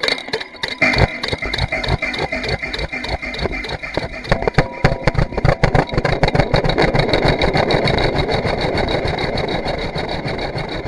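Fast, uneven mechanical clicking and rattling from gadgets on a homemade noise box, picked up by a piezo contact mic and smeared by heavy delay and reverb into a building wash.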